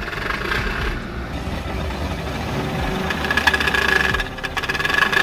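2022 Hyundai Santa Cruz's 2.5-litre turbo four-cylinder running under light throttle while its stuck wheels spin on slip-test rollers, the truck making no progress with its all-wheel-drive lock engaged. A rapid rattle and a steady high whine join about three seconds in.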